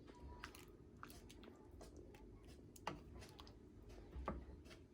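Faint, scattered small clicks and taps over a low steady room hum, with two slightly sharper ticks about three seconds and just over four seconds in.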